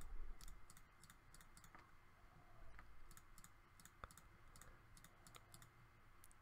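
Faint computer mouse clicks, many of them at irregular intervals, as single facets of a mesh are picked one by one in CAD software.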